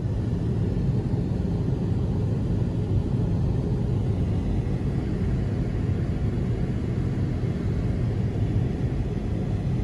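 Steady low rumble of a low-flying airliner passing close overhead, heard together with a car's running noise.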